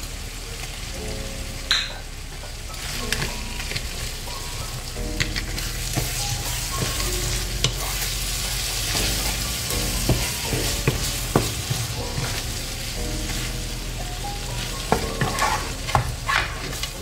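Paella rice, crab and sofrito sizzling steadily in a frying pan as raw fish fillets are laid and pressed into it, with occasional light knocks and stirring sounds.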